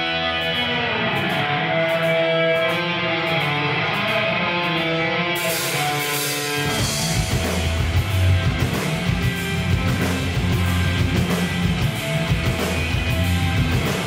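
Live rock band on stage: electric guitar plays held melodic notes over a thin backing, then about six seconds in the drums, cymbals and bass come in and the full band plays on.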